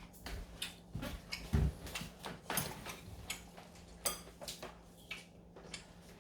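Irregular light clicks and knocks of tableware, spoon and chopsticks against bowls during a meal, over a faint steady hum.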